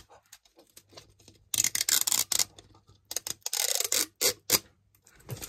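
Plastic sealing strip being peeled off a Mini Brands capsule ball: rapid crackling clicks in a few short bursts as the strip pulls away.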